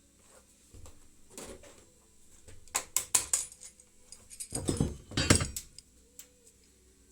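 Metal tools and parts clinking and rattling in two short clusters of sharp clicks, about three seconds in and again about five seconds in.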